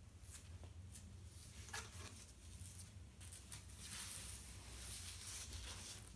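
Soft rustling and brushing of cloth being handled, building up over the second half, with a couple of light clicks earlier on and a faint steady hum underneath.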